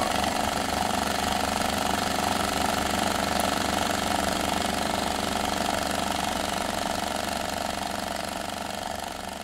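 A steady, rough mechanical drone that slowly fades toward the end.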